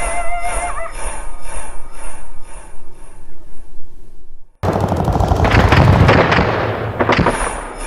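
Added sound effects: a whimpering whine fades out within the first second over a faint, fast, high jingling. About four and a half seconds in, the sound cuts out and a loud burst of rapid cracks over a deep rumble, like machine-gun fire, runs for about two and a half seconds before cutting back to the jingling.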